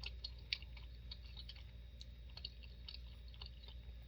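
Close-miked mouth sounds of chewing food: soft, irregular wet clicks and smacks, over a low steady hum.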